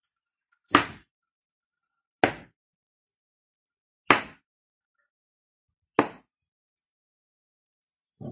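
Kitchen knife chopping through a wedge of squash onto a wooden cutting board: four sharp knocks about two seconds apart, with a softer, duller thud near the end.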